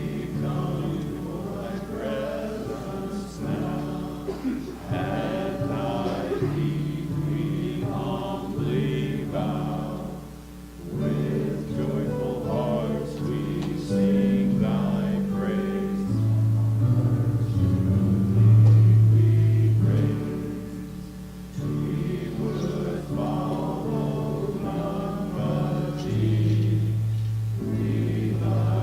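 Congregation singing a hymn together over sustained instrumental accompaniment, with brief dips between phrases about ten and twenty-one seconds in.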